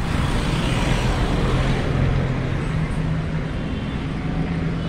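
A moving road vehicle: a steady engine hum under loud, even road noise.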